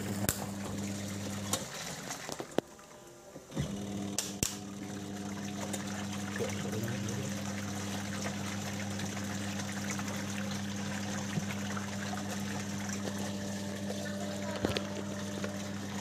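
Aqua twin-tub washing machine's wash motor humming steadily as the pulsator swirls and sloshes the water in the tub. The hum stops about a second and a half in and starts again two seconds later. The machine turns only one way instead of back and forth, which the repairer puts down to a likely faulty timer.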